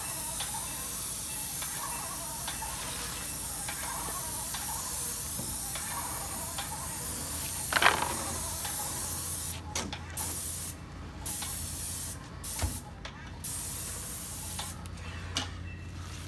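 Airless paint spray gun spraying paint onto wooden siding: a steady high hiss, with one sharp knock about eight seconds in. In the last several seconds the hiss stops and starts again several times as the trigger is released and pulled.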